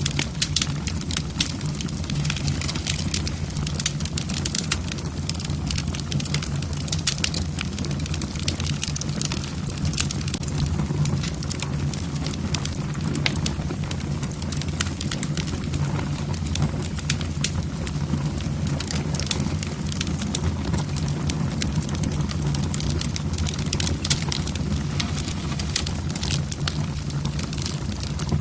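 Logs burning in a fireplace, crackling and snapping many times a second over a steady low rumble of the flames.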